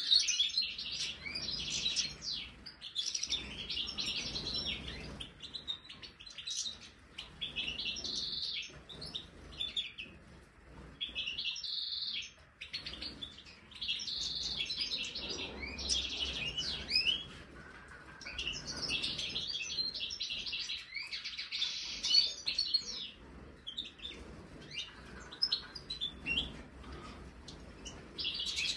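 European goldfinches (Stieglitz, major form) twittering and singing in repeated bursts of a second or two, several birds at once.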